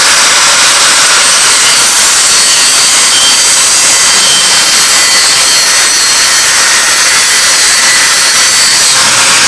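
Power grinder grinding a steel blade: a loud, steady, hissing grind with a faint whine and no hammer blows.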